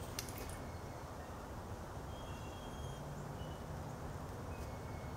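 Quiet outdoor background: a steady low rumble, a faint click just after the start, and a few faint, short high tones around the middle.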